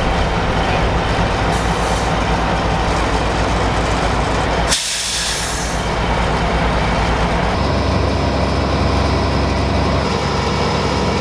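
Heavy diesel engines of idling emergency vehicles, a steady low rumble, with a sharp hiss of released air about halfway through. The rumble changes character about three-quarters of the way through.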